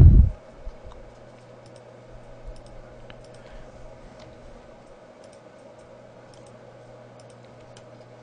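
Faint, scattered clicks of a computer mouse and keyboard over a steady low electrical hum, with a brief low rumble on the microphone at the very start.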